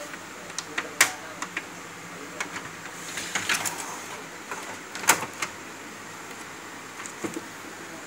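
Handling sounds on a Canon imageRunner 2520 copier: scattered sharp plastic clicks and knocks with some rustling as the bypass tray's paper guide is pushed against the paper stack, the loudest clicks about a second in and about five seconds in.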